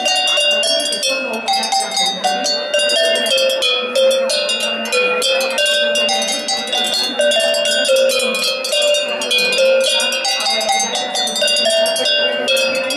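A row of metal cowbells of different pitches, hung from a wooden pole, struck by hand in a fast, continuous run of ringing notes that form a tune.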